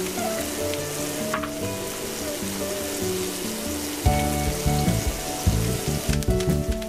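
Steak frying in foaming butter in a cast iron skillet: a steady sizzle. Background music runs under it, with heavier low notes from about four seconds in.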